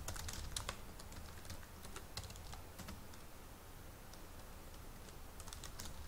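Typing on a computer keyboard: scattered key clicks, a quick run of keystrokes at the start and another near the end with a sparse pause in between, over a faint low hum.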